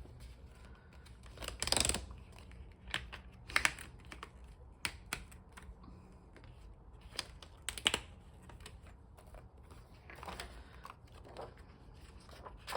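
Pages of a disc-bound planner being pulled off their discs and handled: scattered sharp clicks with short paper rustles in between.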